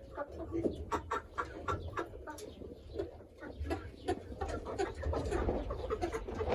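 Chickens clucking, a string of short calls that keeps on throughout.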